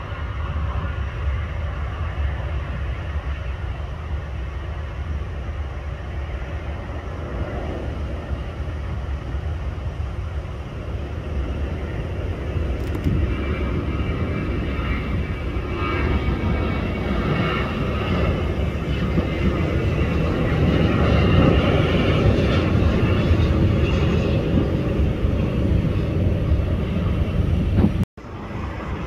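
Jet engines of a Southwest Airlines Boeing 737 at takeoff power as it rolls and lifts off. The roar builds from about halfway through and is loudest past the midpoint, then the sound drops out for an instant near the end.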